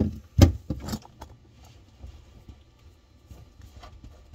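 A few sharp knocks of a hand tool against the faucet's metal fittings under a kitchen sink in the first second or so, as the mounting nuts are being loosened, then only faint handling noise.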